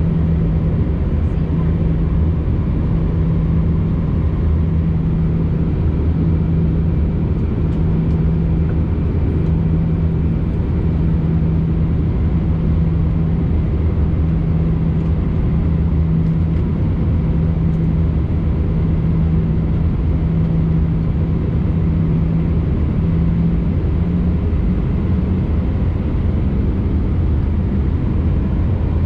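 Cabin noise aboard an Airbus A319 jet airliner: a steady drone of engines and airflow with a low hum, whose pitch rises slightly about 24 seconds in.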